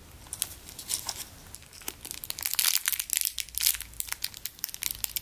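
Clear plastic bag around a squishy toy crinkling as it is handled, a run of sharp crackles that grows denser from about two seconds in.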